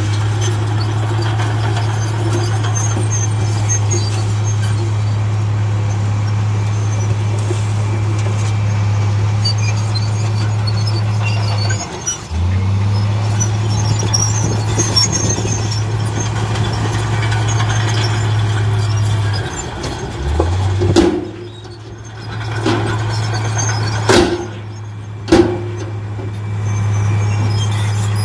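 Diesel engine of heavy earthmoving machinery running at high revs in long steady spells. Twice it drops off and quickly revs back up. Several loud knocks come near the end.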